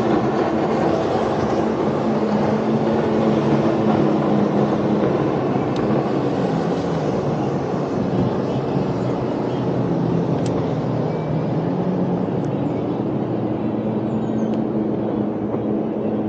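Motorboat engine running steadily, its pitch drifting slowly up and down, easing off a little toward the end.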